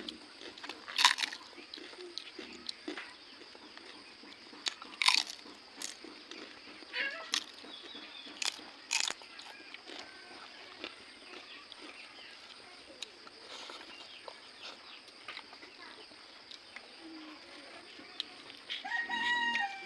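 Crisp papad being bitten and chewed: a handful of sharp, loud crunches spaced a second or more apart, mostly in the first half, with quieter chewing between.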